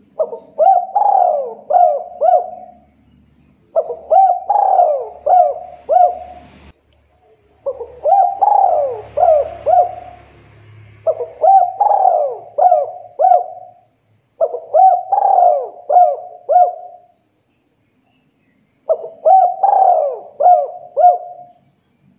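Spotted dove cooing its song: six phrases, each a quick run of four or five coos rising and falling in pitch, with short pauses between phrases.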